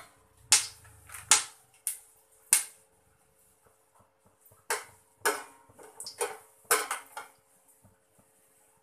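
Whole spices dropped one after another into hot oil in a metal pot: a series of about nine sharp clicks and crackles, a few at a time, over a faint steady hum.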